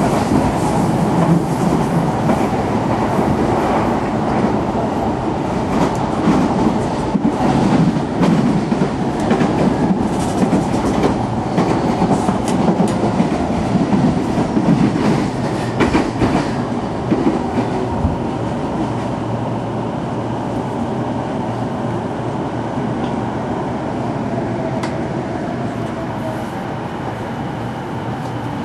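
Inside a Keihin-Tōhoku Line commuter train car running on the rails: a steady rumble broken by sharp clacks of the wheels over rail joints. Over the second half it grows gradually quieter as the train slows for the next station.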